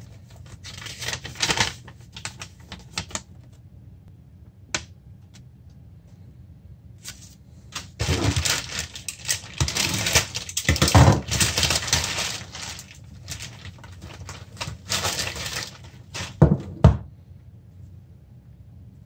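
Plastic courier mailer bag crinkling and rustling as it is handled and cut open with scissors, with paper rustling near the start. Two sharp knocks near the end.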